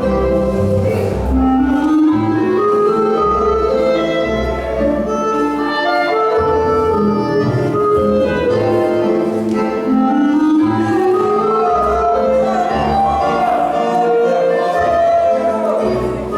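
Music for the pas de gras ballroom dance: a melodic tune with woodwind-like lines over a pulsing bass, with a rising run about a second in and another about ten seconds in.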